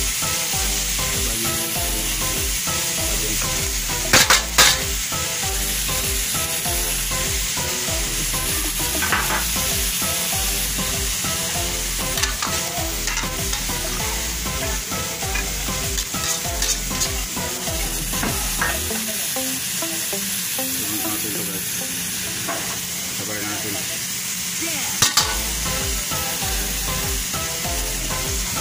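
Beef innards and bamboo shoots sizzling in hot oil in a wok while being stirred, with a steady hiss. A utensil knocks against the pan a few times, loudest twice in quick succession about four seconds in and once near the end.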